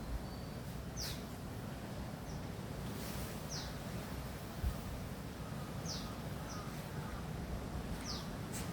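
A bird giving short, high chirps that fall in pitch, about six over several seconds, over a steady low rumble of wind noise, with a soft bump about halfway through.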